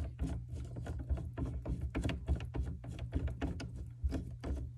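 P-trap slip nuts being spun off the drain pipe by hand, their threads giving a quick, irregular run of small clicks and ticks.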